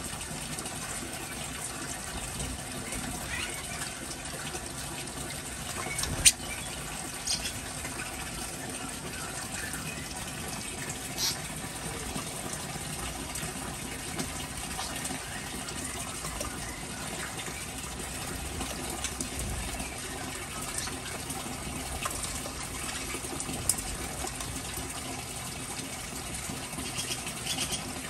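Steady rush of running water, with small birds chirping briefly now and then and one sharp click about six seconds in.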